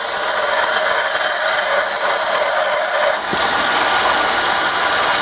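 Palmgren belt grinder running as the edge of an old steel file is ground against the belt, knocking the file's teeth down. About three seconds in the file is lifted off and the grinding stops, and the belt keeps running.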